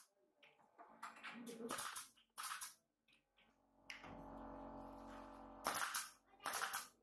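Workshop clatter: a few sharp knocks about one to three seconds in, a steady hum from about four seconds in, then two louder clacks near the end.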